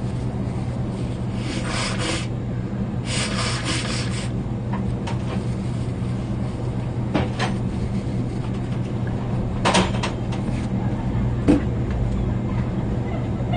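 Paper tissue rustling and rubbing twice in the first few seconds, over a steady low hum. A few light clicks and knocks follow later.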